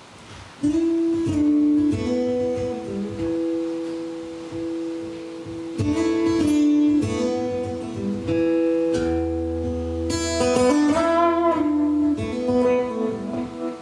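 Solo acoustic guitar opening a song, coming in about a second in with chords whose notes ring on, and a low bass note held for a few seconds near the end.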